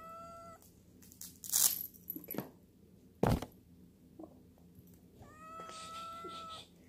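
Tabby house cat meowing twice: a short meow at the start and a longer, drawn-out one about five seconds in, held on a steady pitch. In between come a few sharp thumps and rustles of handling, the loudest about three seconds in.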